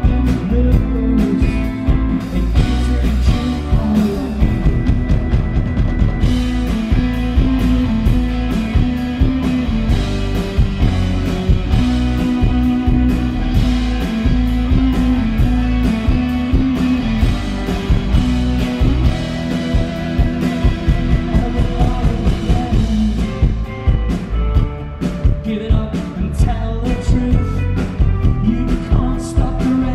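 Live rock band playing through a PA, recorded from the crowd: electric guitars, bass and drum kit keeping a steady beat, with singing.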